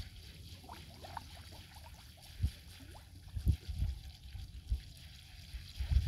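Shallow floodwater sloshing and trickling as a cast net is hauled in by hand through it, with a few low thumps.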